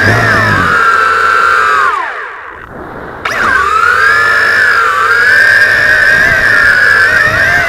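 Tarantula X6 (JJRC H16) quadcopter's motors and propellers whining, several close tones, picked up by its onboard keychain camera. About two seconds in the pitch falls steeply and the sound drops away as the motors are throttled down and the drone loses height; about a second later they spin back up with a sudden jump in level and the whine rises again and holds steady.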